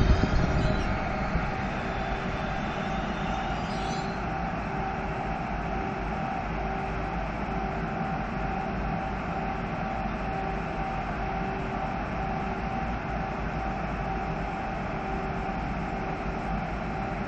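PESA Elf (EN76) electric multiple unit coming to rest at a platform: a steady running hum with a faint tone that pulses about once a second. A faint wheel or brake squeal fades out near the start, and a high hiss stops about four seconds in.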